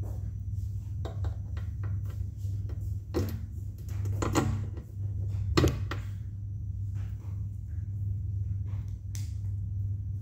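Plastic Lego Technic parts clicking and knocking as they are handled and pressed together, with a few sharper knocks about three, four and a half and five and a half seconds in, over a steady low hum.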